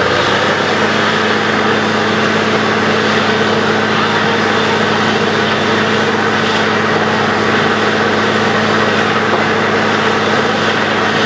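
Truck-mounted borewell drilling rig running steadily while it drills, with the hiss of air-flushed water and mud spraying up out of the bore around the drill pipe.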